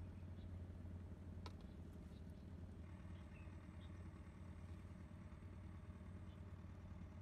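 Near silence: faint outdoor background with a steady low hum and one faint click about a second and a half in.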